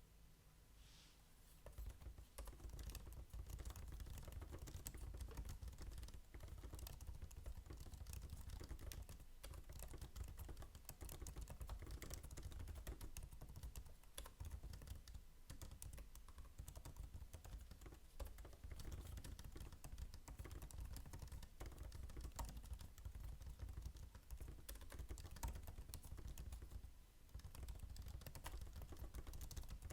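Continuous fast typing on the built-in scissor-switch keyboard of a 2021 16-inch Apple MacBook Pro: a quiet, rapid, irregular patter of light key clicks that starts about a second and a half in, with a brief pause near the end.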